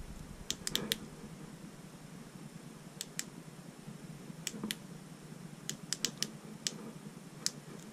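Konus flashlight's push-button switch clicked repeatedly in quick groups of two to four clicks with pauses between, as the switch's click sequences are tried to change its light modes.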